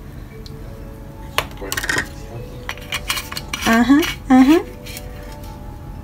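Metal kitchen utensils clinking and tapping against a stainless steel mixing bowl as oil is measured and a wire whisk rests in the bowl. The clinks come scattered through the middle, with two short rising tones a little past halfway, over soft background music.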